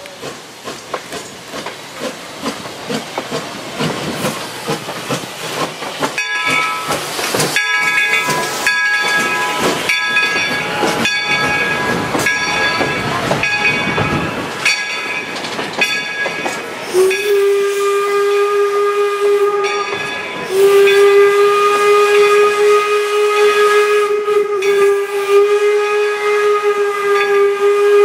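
A 4-4-0 steam locomotive passing with hissing steam and exhaust puffs, then its coaches rolling by with high squealing wheel tones. Later the locomotive's single-chime steam whistle blows a long, steady, loud note, broken once briefly.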